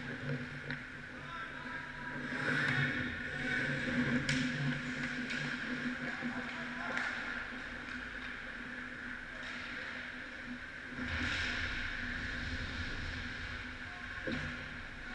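Ice hockey rink ambience: a steady hum with skates scraping on the ice, a few sharp clicks and faint distant voices.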